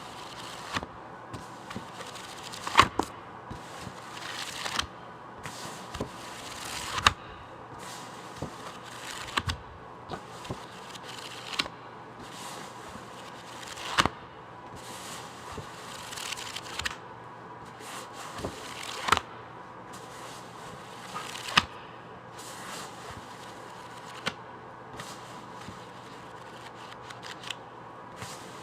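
Books being handled: sharp irregular taps on the covers every second or few, with paper rustling between them and a faint steady hum underneath.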